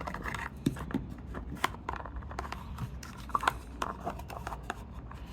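Close handling noise from hands working a small mounting piece: scattered light clicks, taps and rustles over a low steady hum.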